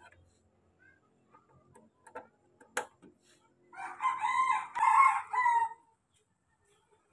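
A rooster crows once, a drawn-out cock-a-doodle-doo of about two seconds that rises in loudness toward its end. A single sharp click comes a second or so before it.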